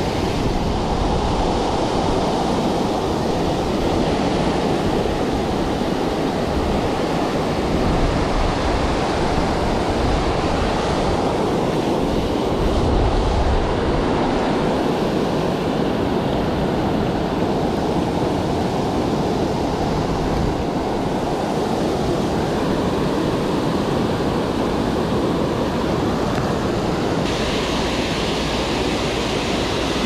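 Water pouring over a low-head dam spillway: a steady rushing, with a hissier edge near the end.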